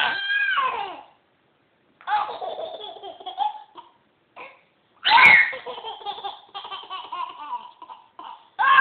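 Baby laughing in several bursts of high, squealing laughter with short pauses between, the loudest burst starting about five seconds in.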